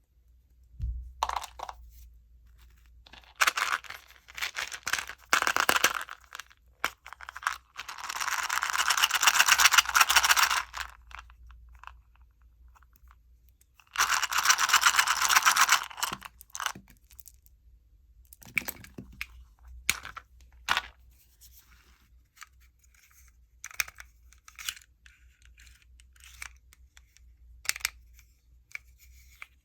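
Plastic candy wrappers being handled and torn open: scattered crinkles and rustles, with two longer, louder tearing sounds about eight and fourteen seconds in.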